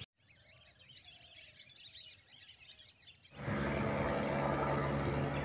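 Faint birds chirping, then about three seconds in a steady low drone cuts in: a survey helicopter flying at a distance overhead.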